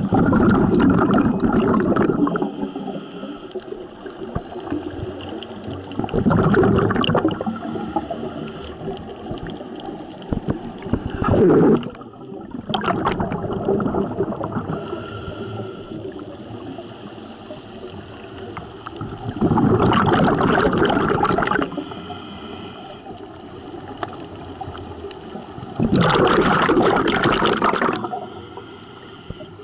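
Scuba diver's exhaled breath bubbling out of the regulator, heard underwater: a loud rushing gurgle of a second or two, five times, about every six seconds, with a fainter hiss of water between.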